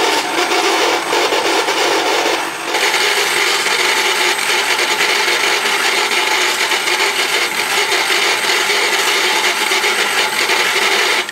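The Andy Gard Electronic Shooting Range toy switched on and running, a loud steady mechanical noise with a brief change about two and a half seconds in, cutting off sharply at the end.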